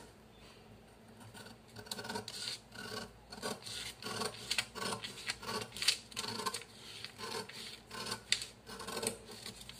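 Scissors cutting through a brown paper sleeve pattern: a run of snips, about two or three a second, starting about a second in.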